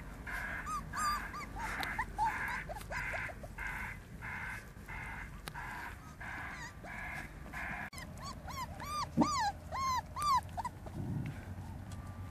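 Puppies whimpering and yipping in short high whines that rise and fall, most of them bunched together about two-thirds of the way through. Under them runs a steady rhythmic breathy sound about twice a second.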